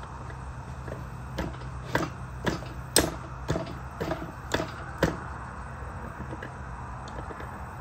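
Series of about nine sharp metallic clicks and knocks, roughly two a second, from a Kiekhaefer Mercury 650 outboard's crankshaft being worked by hand in its bare cylinder block during the rotating-assembly rebuild; the clicks stop about five seconds in.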